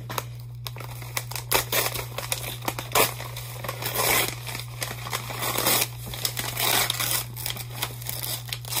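Thin plastic packaging sleeve crinkling and being torn open by hand: a run of irregular crackles and rustles, with a steady low hum underneath.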